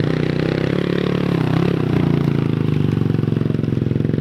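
Mini dirt bike engine running close by, with a brief rise and fall in pitch about a second and a half in.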